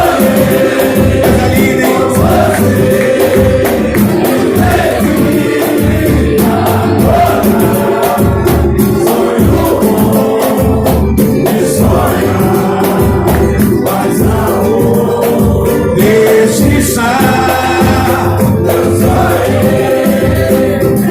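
Live band music with several voices singing together over steady percussion.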